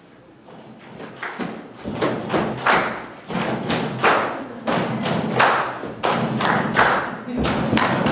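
Rhythmic thumping percussion, about two heavy beats a second, with music under it. It starts about a second in and gets louder.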